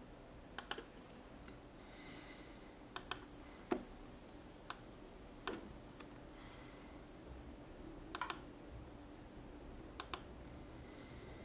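Computer mouse buttons clicking at irregular intervals, single clicks and a few quick double clicks, over faint steady background noise.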